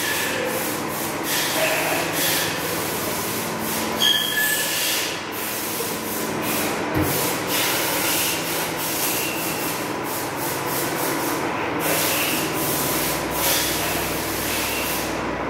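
Pneumatic hay packaging press running: a steady mechanical noise with many short hisses of air, one after another, over a faint steady hum.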